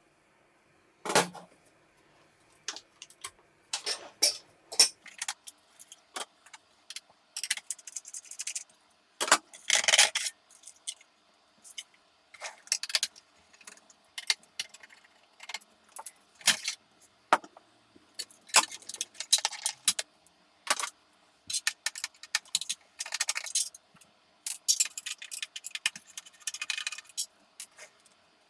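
Small metal parts and sheet-metal pieces of a desktop computer being handled: irregular sharp metallic clicks, clinks and light rattles, a few of them louder knocks, spread throughout with a faint steady hum underneath.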